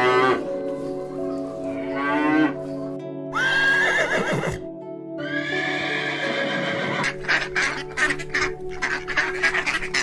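Farm animal calls over steady background music: a cow mooing, then a horse whinnying, its long call holding a high note before sliding down. A quick run of short sharp sounds follows in the last few seconds.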